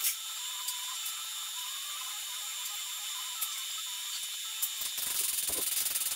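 TIG welding arc running steadily with a fine, even hiss and faint crackle. It grows louder and rougher about five seconds in.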